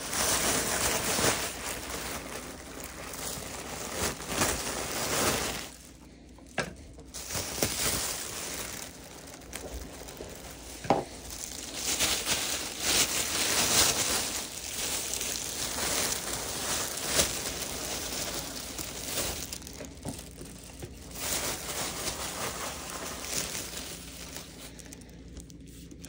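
Brown paper bag and wrapping crinkling and rustling as they are handled, with short pauses and one sharp knock about eleven seconds in.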